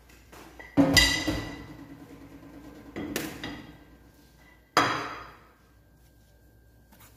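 Three sharp clanks of kitchenware being knocked or set down, about a second in, three seconds in and near five seconds, each ringing out briefly.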